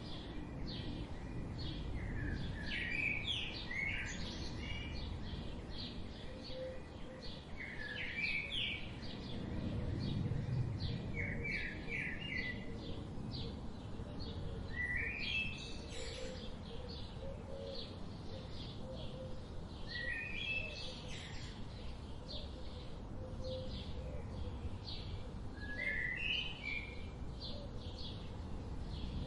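Birds chirping and singing. Short rising chirp phrases recur every few seconds among many quick high chirps, over a low background rumble.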